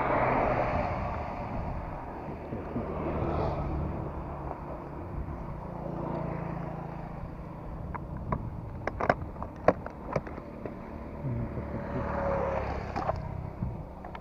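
Small motorcycle engine running steadily, heard under wind noise on the microphone, with a run of sharp clicks about eight to thirteen seconds in.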